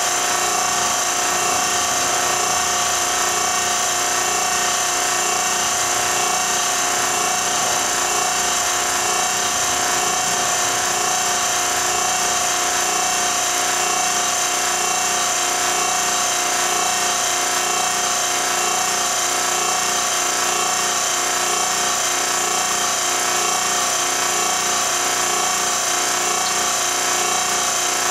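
Steady machine noise running without change, with a constant mid-pitched whine and a high whine over an even hiss.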